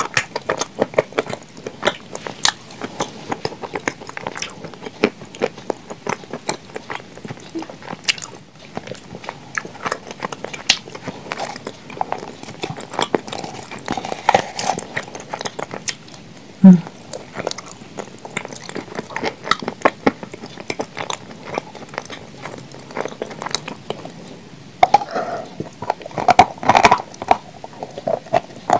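Close-up chewing and crunching of blue Uzbek clay mixed with cream, eaten by the spoonful: wet mouth sounds with many small, irregular crunches. There is one dull thump just past the middle, and louder crunching near the end.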